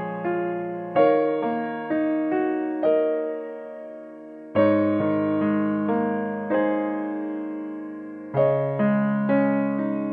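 Background music: a gentle piano tune, each note struck and then left to fade.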